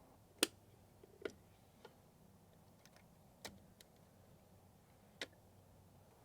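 A handful of sharp, separate clicks and ticks, about six spread irregularly over a few seconds, the first one, about half a second in, the loudest, over a faint low hum.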